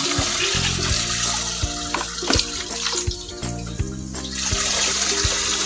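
Water poured from a plastic dipper into a knapsack sprayer's plastic tank, pausing for about a second near the middle and then pouring again, with a few light knocks of the dipper.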